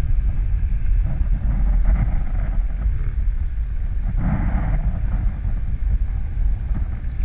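Steady low rumble of wind buffeting the microphone aboard a small boat on open sea, with a brief fainter sound about four seconds in.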